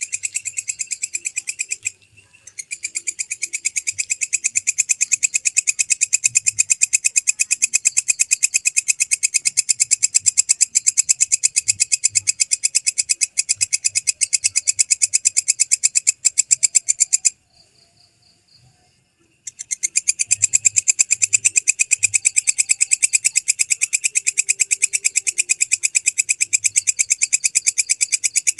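Belalang kecek (walang kecek) katydid singing: a loud, high, rapidly pulsed buzzing trill, with a brief break about two seconds in and a longer pause of about two seconds past the middle.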